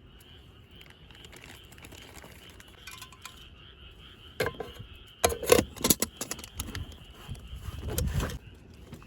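Metal camp cookware being handled: a cluster of sharp clinks and knocks about four to six and a half seconds in, then a duller handling thump around eight seconds in.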